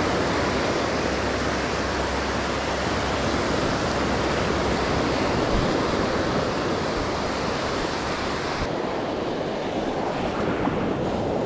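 Ocean surf washing over a shallow sandy beach: a steady rush of small breaking waves and foam.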